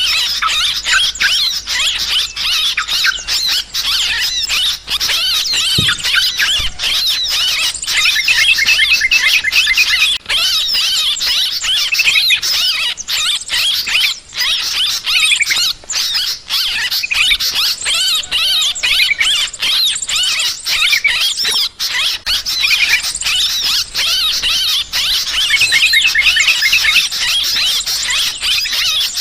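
Yellow-vented bulbuls (trucukan) calling in a dense, unbroken chatter of rapid high-pitched notes: the agitated 'ribut' calling used as a lure to draw birds in.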